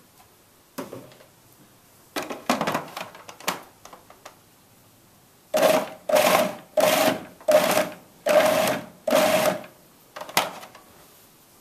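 Food processor pulsed about six times in quick short bursts, each under a second, chopping eggs into a herb sauce. Before that, a few knocks and clatters as the eggs go into the plastic bowl and the lid is fitted.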